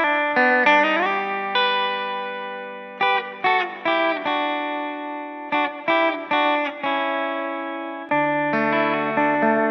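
Intro music: a guitar picking single notes and chords that ring out, with a slide up about a second in.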